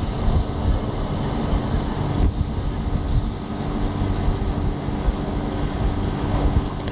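Steady low mechanical hum with a few held tones over a rough, unsteady low rumble: street machinery or traffic heard with wind buffeting the microphone.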